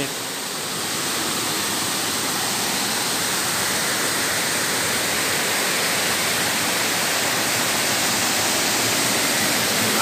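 Water of a small waterfall cascading over rock into a stream: a steady rush, a little quieter for the first second.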